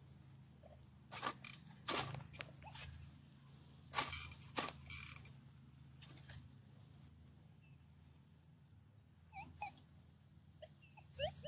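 Several short rustling swishes through grass from a metal detector's coil being swung over a lawn. From about nine seconds in come short, faint pitched beeps of an XP Deus 2 metal detector sounding on a buried target.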